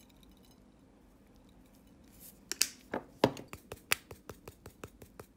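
A seasoning shaker being shaken to sprinkle herb salt and parsley: a run of quick, sharp clicks, about five a second, starting about two and a half seconds in.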